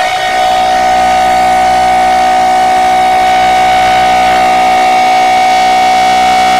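Synthetic emergency-alert alarm: a loud siren-like tone held steady at one pitch, with several other steady tones layered under and over it.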